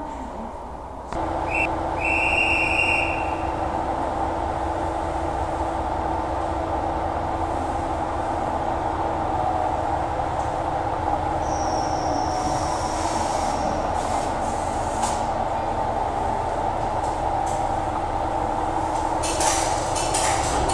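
A 'Tango no Umi' diesel railcar standing at the platform with its engine idling in a steady drone. A short high beep sounds about two seconds in, a higher tone around twelve seconds, and a few clicks come near the end.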